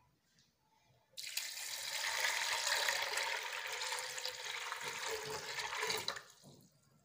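Water poured in a steady stream into an aluminium pressure cooker onto soaked chickpeas, starting about a second in and stopping near the end.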